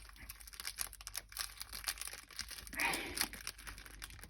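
Packaging and paper being handled, crinkling and rustling in many small quick crackles, with a fuller rustle about three seconds in.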